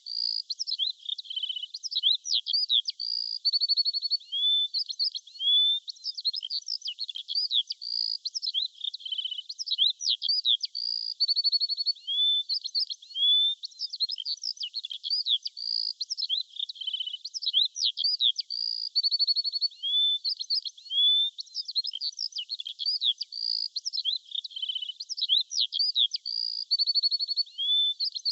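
Birdsong: a dense, continuous run of quick chirps, short rising whistles and brief rapid trills, all high-pitched with no low sound beneath.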